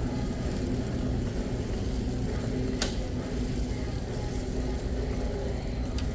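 Steady low hum of a store's background ambience, with a single sharp click about three seconds in.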